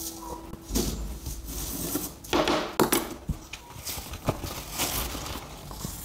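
Irregular dry rustling and scraping with scattered light taps and ticks: colored sand being worked by hand on sticker paper during a sand painting.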